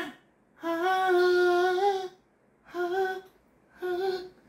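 A man's voice singing loud, wordless held notes at a high pitch: one long note lasting over a second, then two short ones.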